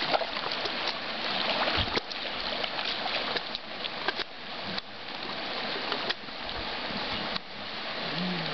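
A mule wading through shallow creek water, its legs splashing and churning the water in a steady rushing wash.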